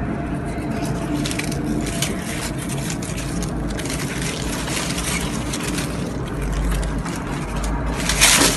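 Crackling rustle and handling noise on a phone microphone as it moves close among potted plant leaves, over a steady low rumble, with a brief louder crackle near the end.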